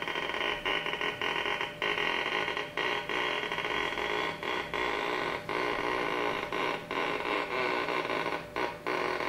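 Dense electronic drone of many held tones, broken by brief, irregular dropouts about twice a second.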